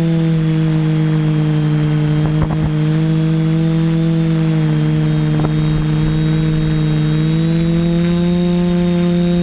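TBS Discovery quadcopter's four Sunnysky 2216 800kv brushless motors spinning 10x5 props in flight, a steady loud hum. Its pitch sags a little through the middle and rises again near the end as the throttle changes.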